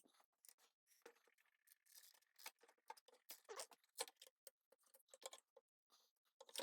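Near silence with faint, scattered clicks and light rustling from parts and tools being handled.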